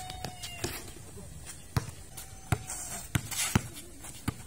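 Basketball bouncing on a concrete court during one-on-one play: about half a dozen sharp thuds at uneven spacing, with a brief scuffing hiss about three and a half seconds in.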